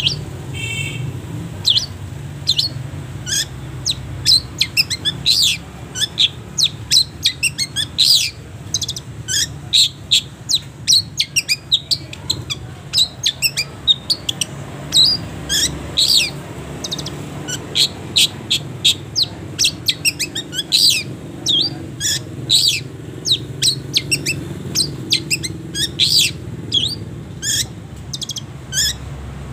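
Long-tailed shrike (cendet) singing: a long, busy run of short, sharp, high notes, several a second, over a steady low background hum.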